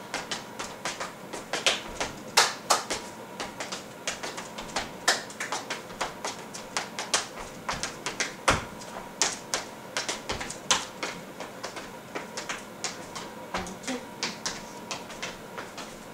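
Tap shoes striking a hardwood floor as a tap routine is danced through: quick, irregular runs of sharp taps, several a second, with a few louder heel or stamp strikes.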